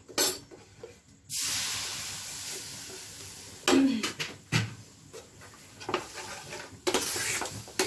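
Water poured into a hot pan of roasted whole-wheat flour sizzles with a sudden hiss about a second in that fades away over about two seconds. Then a steel spoon clinks and scrapes against the pan as the flour and water are stirred together.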